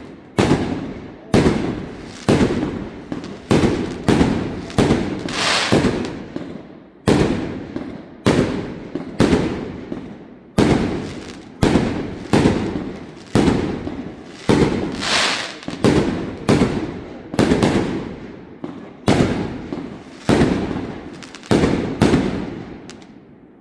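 Firework shells bursting one after another in a steady run, about one bang every three quarters of a second, each dying away before the next. There is a brief pause about six seconds in, and the run stops just before the end.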